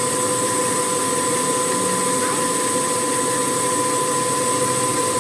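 Steady machine noise: an even drone with a constant hum in it.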